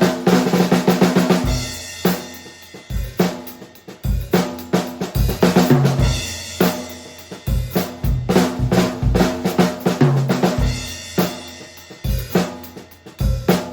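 Drum kit played in grooves and fills to show off a custom snare drum tuned low for a fat sound, with bass drum, hi-hat and crashing cymbals around it.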